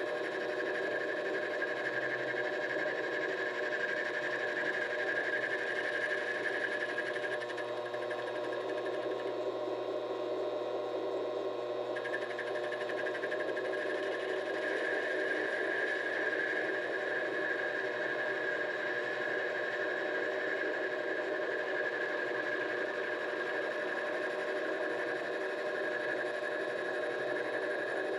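Vevor 7x12 mini-lathe running steadily with a constant whine. The higher part of the whine drops out for a few seconds about a third of the way in, then comes back.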